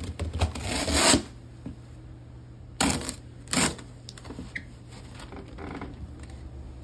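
Rustling and scuffing of winter clothing and snow boots being pulled on: a longer rub through the first second, then two short brushes about three and three and a half seconds in, over a low steady hum.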